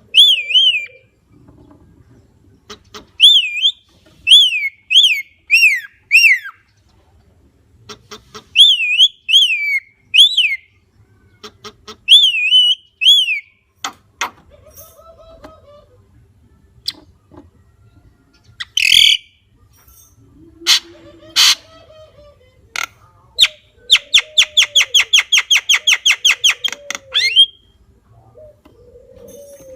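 Javan myna (jalak kebo) calling. For the first half it gives loud whistled notes that rise and fall, in bursts of two to five. After that come scattered clicks and harsh notes, then a fast run of about four sharp notes a second near the end.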